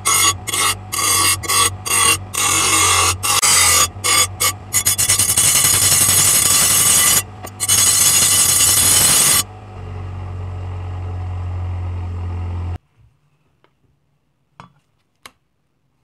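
A bench grinder's stone wheel grinds the edge of a thin metal disc, a harsh grinding noise broken by short gaps as the disc is lifted and turned, over the grinder motor's steady hum. The grinding stops about nine seconds in, the hum runs on for a few more seconds and then cuts off, and two faint taps follow near the end.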